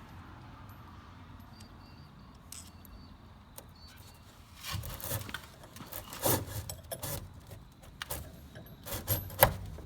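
Metal clinking and rattling as a threaded bolt and its fittings are worked through a polystyrene ICF block. A quiet hum comes first, then a run of sharp clicks and rattles from about halfway through, the loudest click near the end.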